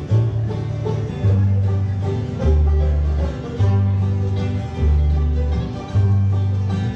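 Acoustic bluegrass jam band playing: banjo and guitar picking over a bass line that alternates between two low notes about once a second.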